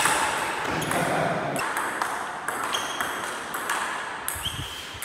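Table tennis rally: the ball clicking back and forth off the paddles and table in a quick, steady run, about two hits a second, echoing off the hard walls of the court.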